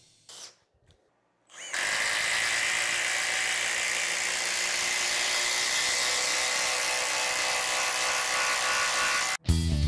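Makita XDT14 brushless impact driver running steadily under load for about seven seconds, driving a fastener into laminated lumber, with a high steady whine over the noise; it stops abruptly near the end.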